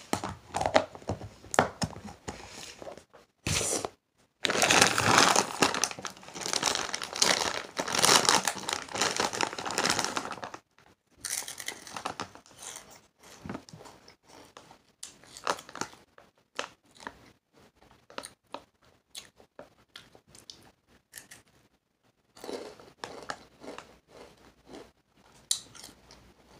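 Crinkling and rustling of a Takis chip bag being handled. The rustling is loud and continuous for about six seconds in the first half, then breaks into scattered short crackles, with another burst near the end.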